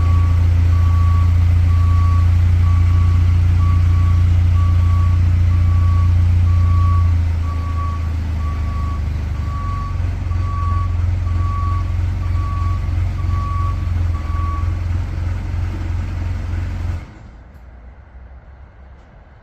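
A heavy machine's engine running under load while its backup alarm beeps steadily, a bit more than once a second, as it reverses. The beeping stops near the end, and shortly after, the engine sound cuts off abruptly.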